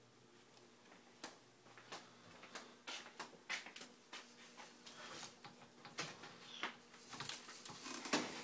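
Irregular light clicks and taps of a louvered closet door being handled, ending in a louder clatter near the end as the door is pulled open.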